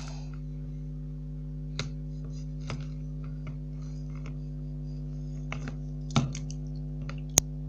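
A steady low electrical hum, with a few scattered knocks and clicks from a Barbie doll and the recording phone being handled; a louder knock about six seconds in and a sharp click just after seven seconds.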